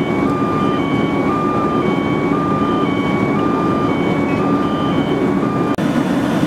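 Fire apparatus engine running with a steady low drone, with an electronic alarm over it alternating between two pitches about every half second. The alarm stops abruptly near the end while the engine noise continues.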